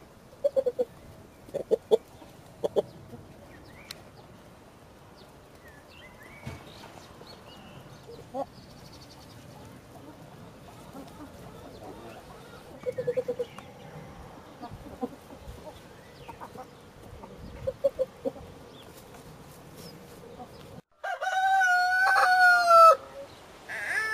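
Chickens clucking softly and sporadically while feeding, in short low calls. Near the end a cockerel crows loudly for about two seconds, followed by a shorter loud call.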